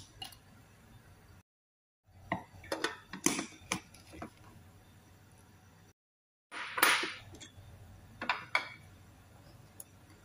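Dry prawn crackers being dropped and pressed into a plastic food chopper bowl, with scattered short clicks and rattles of crackers and plastic parts. There is a louder rattling burst a little before the middle, and the sound cuts out twice to dead silence.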